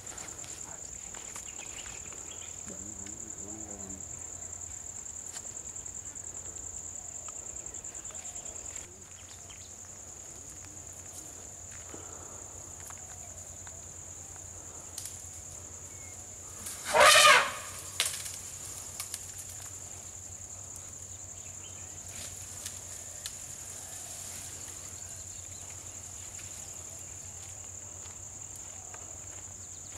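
Insects droning steadily at a high pitch, a little quieter after about nine seconds in, with one loud wavering call lasting under a second about halfway through.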